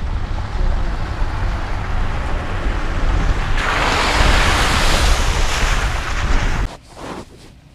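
Wind buffeting the microphone of a camera mounted outside a pickup truck driving slowly on a dirt road, over a low rumble. The wind rush swells loudest in the second half, then cuts off suddenly about seven seconds in.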